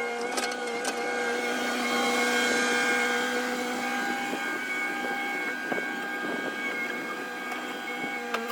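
A machine running steadily with a whine made of several held tones and some hiss, which swells a little about two seconds in.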